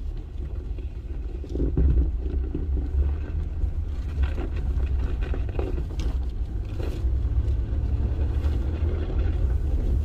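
Jeep Gladiator driving: a steady low rumble of engine and tyres with faint scattered knocks and rattles, a little louder from about two seconds in.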